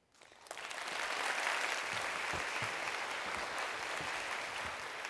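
A large audience of junior-high students applauding, many hands clapping together. It builds up over about the first second, then holds steady.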